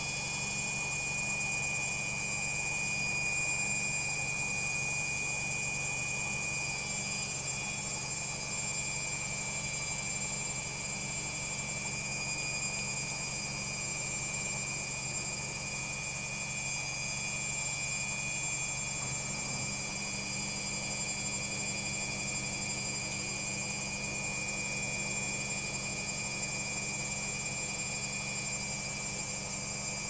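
Logik front-loading washing machine on its spin cycle, the drum spinning steadily: a constant high-pitched motor whine over a low hum.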